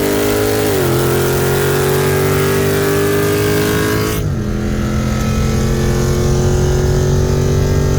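BMW 340i's turbocharged 3.0-litre inline-six with a catless downpipe pulling hard at full throttle from a 60 mph roll, heard from inside the cabin. Engine pitch climbs steadily and drops sharply with an upshift about a second in and another about four seconds in, then climbs again.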